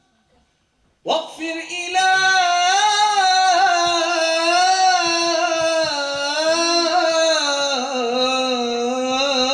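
A man singing a nashid without accompaniment. About a second in he comes in suddenly and holds one long drawn-out note with a wavering pitch that slowly sinks.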